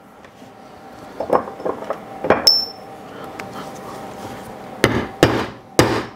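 Hammer striking a metal rivet-setting punch to peen a copper rivet post over its burr on a leather strap, the work backed by a steel block on granite. There are a few light taps and a short metallic ping, then three hard blows close together near the end.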